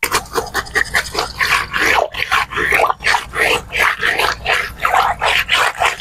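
Hand brush scrubbing a plastic birdcage tray under running water, in quick rasping strokes several a second.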